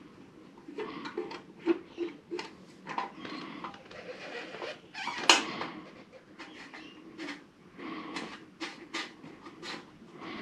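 Hand work on a motorcycle's front fork: irregular clicks, taps and rattles of tools and parts being handled, with one sharper knock about five seconds in.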